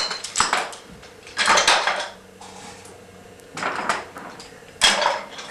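Toy train cars and wooden track pieces clattering as they are handled and set down, in four short bursts, the second the longest and loudest.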